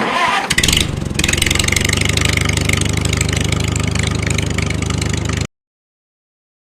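A small engine running steadily with a fast, even beat, which cuts off abruptly after about five and a half seconds.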